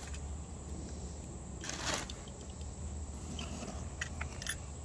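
Uniform clothing and a cardboard box rustling as garments are handled and lifted out, with one louder rustle about two seconds in and a few light clicks near the end.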